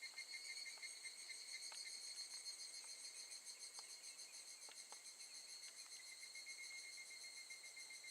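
Higurashi (evening cicada) calling: a faint, high, ringing trill that pulses rapidly, fading slightly through the stretch.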